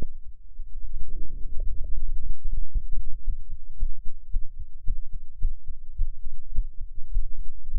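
Human heartbeat picked up through a stethoscope chest piece with a microphone in a plastic tube: a run of low thumping beats.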